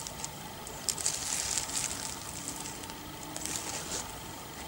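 Rustling and crackling of leaves and twigs in two short spells, with small snapping clicks.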